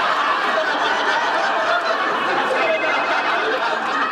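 Sitcom studio audience laughing at a punchline, a dense steady crowd laugh that only begins to ease near the end.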